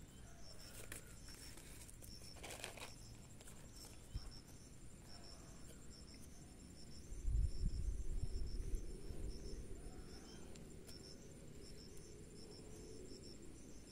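Insects chirping steadily in a faint, evenly repeating high-pitched pulse. A few faint rustles and clicks come from hands threading chicken intestine onto a fishing hook, and a low rumble sounds from about seven to nine seconds in.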